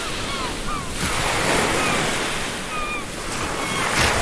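Ocean surf washing onto a beach, with gulls giving short cries over it again and again; a wave surges in near the end.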